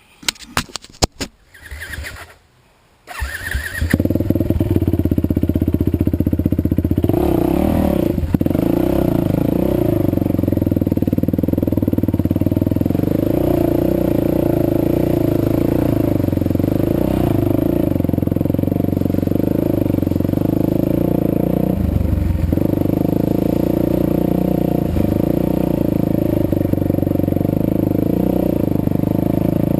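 Yamaha WR450F's single-cylinder four-stroke engine, freshly rebuilt with a new piston and rings, starting about three seconds in after a few knocks and then running steadily at idle.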